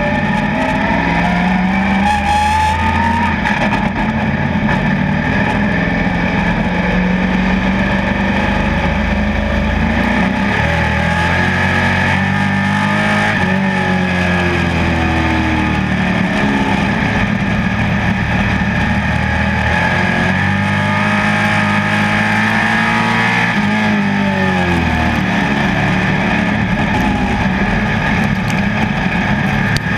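Dirt-track pro stock race car's engine running hard at racing speed. The engine note dips and climbs again about every ten seconds as the car works around the track.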